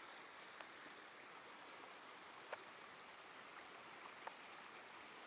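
Faint, steady rush of a small creek running over shallow riffles, with three short, soft ticks spread through it.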